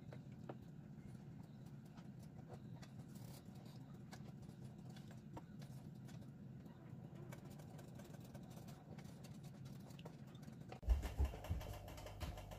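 Wooden spoon stirring beef chunks in thick coconut milk in a stainless steel pan, with faint scattered knocks and scrapes against the pan over a low steady hum. A few louder low thumps near the end.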